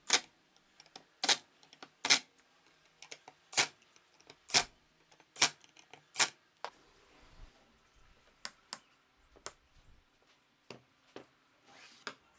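A series of sharp clicks and knocks from hard objects being handled or tapped. About seven loud strikes come roughly a second apart, then softer, quicker clicks near the end.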